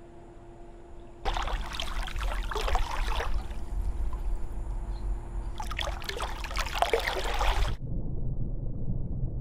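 Pool water splashing and sloshing as a person swims, starting about a second in after a low steady hum. Near the end it cuts suddenly to a dull, muffled underwater sound.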